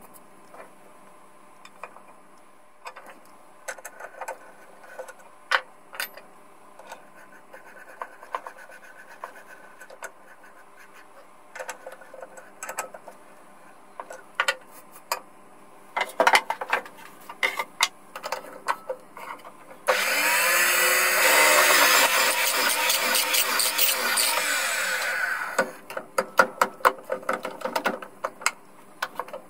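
Benchtop drill press boring into a small block of wood. For most of the stretch there are only scattered clicks and knocks as the block is handled and set on the metal table. About two-thirds of the way through, the drill press runs loud for five seconds or so, then the clicks resume near the end.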